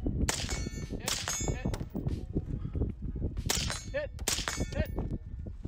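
Steel targets struck by rifle hits: several sharp metallic clangs, each ringing on briefly, the loudest about three and a half and four and a half seconds in.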